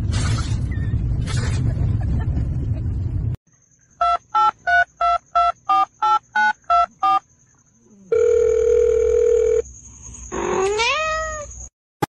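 A husky howling loudly over steady noise, then about ten short evenly spaced electronic beeps like phone-keypad tones, a longer steady beep, and a cat's rising meow near the end.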